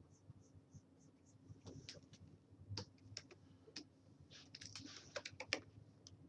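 Faint clicks of computer keys and a stylus on a drawing tablet. They are scattered at first, then come as a quick run of clicks with a soft scratching stroke about four and a half seconds in.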